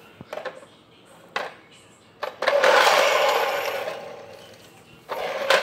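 Small toy car's motor whirring as the car runs across a tiled floor. It starts about two seconds in and fades away over a couple of seconds, with a few light clicks before it and another loud burst near the end.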